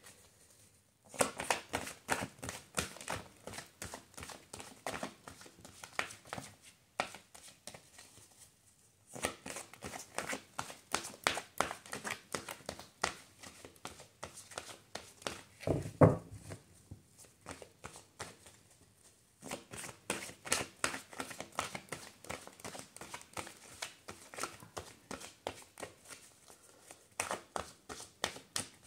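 A deck of tarot cards being shuffled by hand: quick crisp clicking and riffling of the cards, in stretches of several seconds with short pauses between them. One brief louder sound about halfway through.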